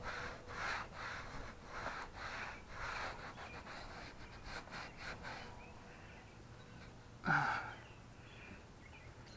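Microfiber cloth rubbed back and forth over plastic bumper trim, swishing about twice a second and stopping about halfway through. A short louder sound that falls in pitch comes about three-quarters of the way in.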